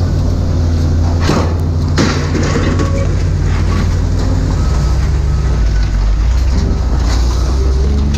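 A large engine running steadily with a low drone; its pitch shifts down about four and a half seconds in. A couple of sharp knocks come about one and two seconds in.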